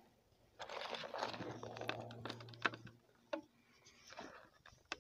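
Hand scooping and pressing a gritty mix of topsoil and washed gravel into a fabric plant pot, giving a crunching rustle for a couple of seconds, then a few scattered clicks of gravel as the soil is firmed.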